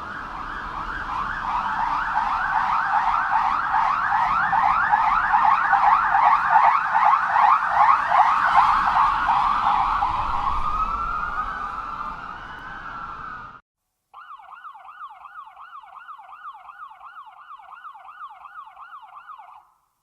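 Police sirens, two recordings one after another. First a fast yelp siren, with rapid rising sweeps about three a second over road noise, grows louder and then fades, sliding into a slower wail before it cuts off. After a brief gap, a second, quieter and cleaner yelp siren sweeps quickly up and down about three times a second.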